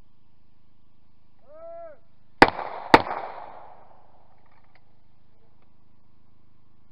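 Two shotgun shots about half a second apart, each a sharp crack with a short echoing tail, fired at a clay target. Just before them comes a brief call with a rising-then-falling pitch, the shooter's call for the clay.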